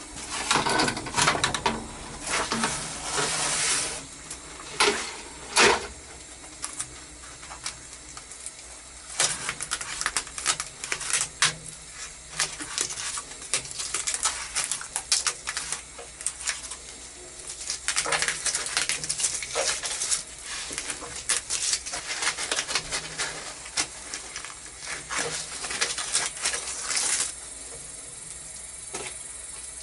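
Tape and insulation wrapping being peeled and torn by hand off a solar water heater's pipes and valve: crackling tears and rustling in irregular spells, stopping a few seconds before the end.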